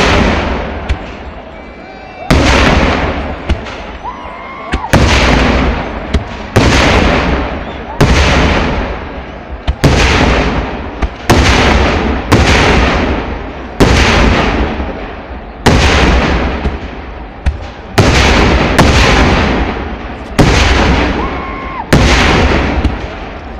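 Kerala temple-festival fireworks: a rapid string of heavy aerial shell bursts, a loud boom about every one to two seconds, each rolling away before the next one hits.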